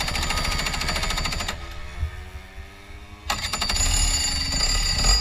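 A 125 cc two-stroke kart engine being push-started, firing in two rapid rattling bursts: the first ends about a second and a half in, the second starts a little after three seconds, with a quieter spell between.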